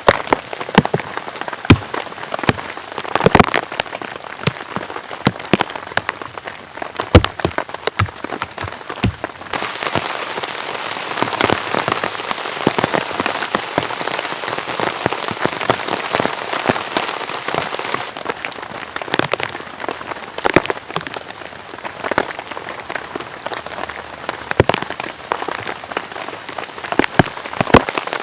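Heavy rain falling steadily, with large drops striking a surface irregularly. The hiss of the rain grows denser from about ten seconds in until about eighteen seconds.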